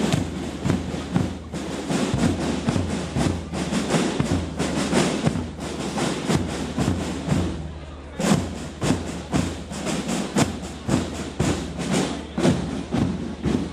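Marching music with a dense run of sharp rhythmic thuds and claps through it, thickest in the second half, at a naval parade of marching marines.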